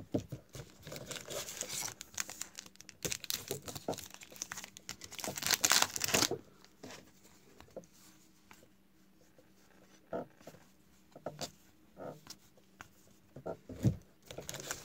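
Foil wrapper of a trading-card pack crinkling and tearing as it is opened, loudest about five to six seconds in. After that come quieter rustles and clicks of the cards being flipped through by hand.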